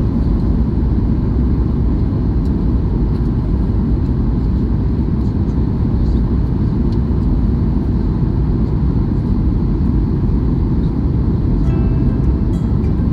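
Steady low rumble inside a jet airliner's cabin on approach to landing: engine and airflow noise heard from a window seat over the wing.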